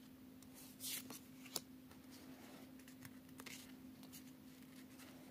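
Oracle cards being handled and slid over one another: a brief swish about a second in and a sharp tap soon after, then a few light clicks, over a faint steady hum.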